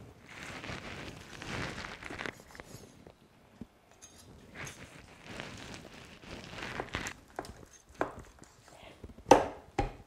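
Meat cleaver slicing down through a roasted rack of lamb between the rib bones in two long strokes, then the blade knocking onto the wooden cutting board a few times near the end, the loudest about a second before the end.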